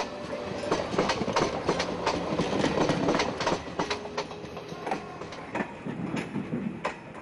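Passenger train running past, its wheels clattering over rail joints in an irregular clickety-clack over a steady rumble, a little quieter after about four seconds.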